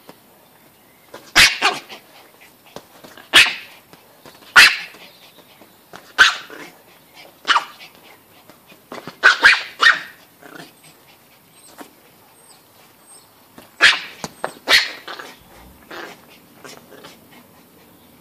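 A Pomeranian barking: about a dozen short, sharp barks at irregular intervals, some in quick runs of two or three.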